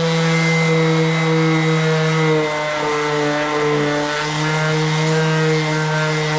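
Variable-speed power sander running steadily on a car body panel, its motor hum dipping slightly in pitch for a moment partway through as it is pressed into the work.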